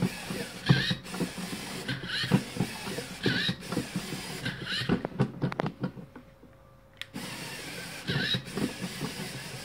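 LEGO Mindstorms EV3 biped robot walking: its Technic servo motors and leg mechanism run with rhythmic plastic creaks, short squeaks and knocks, about one step a second. It goes nearly quiet for about a second past the middle, then starts again with a sharp click.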